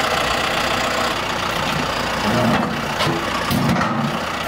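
John Deere tractor's diesel engine idling steadily, with two brief louder swells past the middle.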